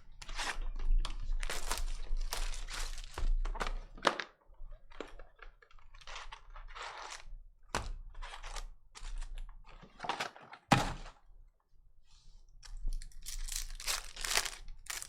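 Trading card packs and box being handled and opened: irregular plastic and foil crinkling and tearing, with cardboard thunks and a sharp knock about eleven seconds in.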